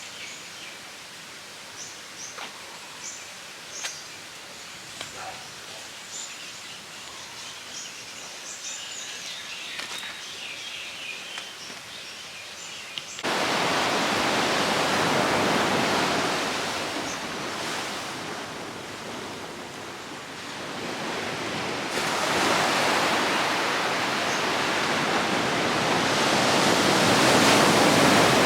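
Faint outdoor background with scattered high bird chirps, then, almost halfway through, an abrupt cut to loud sea surf washing in, swelling and easing in slow waves.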